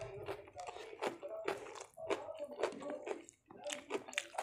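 A person chewing a mouthful of food close to the microphone: wet lip smacks and mouth clicks, several a second.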